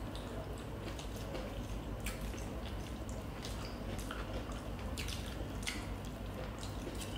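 Eating sounds: wet chewing and mouth smacks with small irregular clicks, over a low steady hum.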